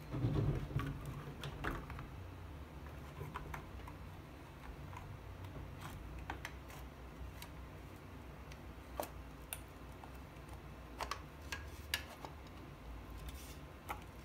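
Handling noise as a GeForce GTX 1050 Ti graphics card is pressed into a motherboard's PCIe slot: a louder bump and rustle in the first second or two, then scattered small sharp plastic clicks and taps.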